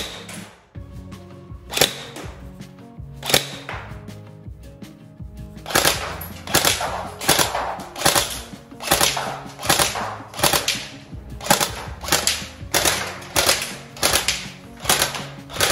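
Tokyo Marui next-generation electric airsoft HK416D firing one shot at a time: three widely spaced sharp shots in the first few seconds, then a steady string of shots about one and a half a second from about six seconds in.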